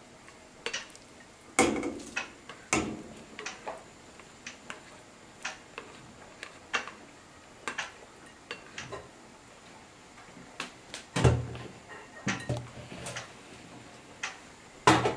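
Irregular clinks and knocks of a spatula tapping and scraping shredded chicken out of a glass bowl into a stainless steel pot of broth, a few heavier knocks near the end.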